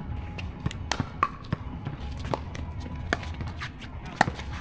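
Pickleball rallies: sharp pops of paddles striking the plastic ball, with ball bounces on the hard court, coming irregularly from this and neighbouring courts. The loudest hit comes about four seconds in.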